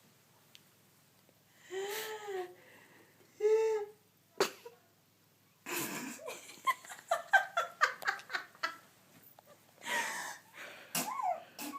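A woman's sneezing fit. After a short quiet come two high, rising-and-falling wheezing gasps, then a rapid run of short sneezes and breaths, with laughter mixed in.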